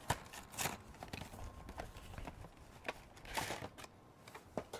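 Cardboard and plastic blister packaging being torn open and handled: scattered sharp clicks and crackles, with a longer rustling rip about three and a half seconds in.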